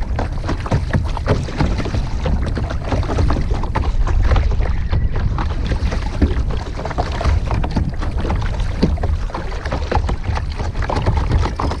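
Kayak paddling: a double-bladed paddle stroking and splashing in the water on alternate sides, with wind rumbling on the microphone.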